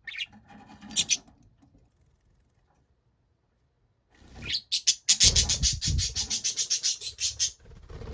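Pet budgerigars calling: a few short chirps at the start, then after a pause a loud, rapid run of pulsed calls, about eight a second, lasting a couple of seconds.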